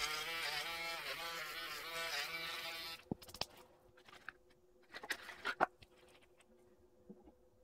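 Handheld electric nail drill with a sanding band bit running against a fingernail, its whine wavering up and down in pitch. It cuts off abruptly about three seconds in, followed by a few light clicks and taps of a small cardboard box and bottle being handled and opened.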